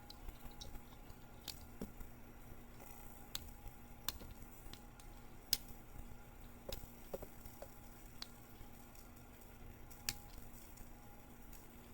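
Faint, scattered clicks and ticks of a lock pick and tension wrench working the pins of an Abus 80TI/50 padlock, about a dozen spread unevenly over the stretch.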